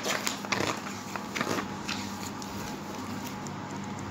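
Pages of a paperback encyclopedia being flipped by hand: a sharp flick, then a few quick papery rustles in the first two seconds. After that only a faint steady hum remains.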